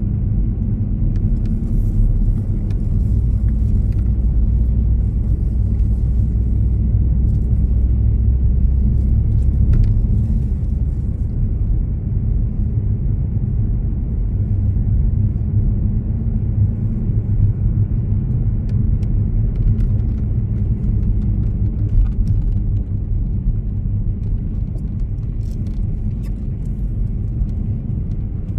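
Steady low rumble of a moving road vehicle heard from inside, the engine and tyres on the road. The deepest part of the rumble eases about ten seconds in.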